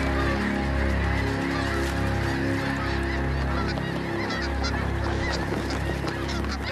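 A large flock of geese honking: a dense, unbroken clamour of many overlapping calls.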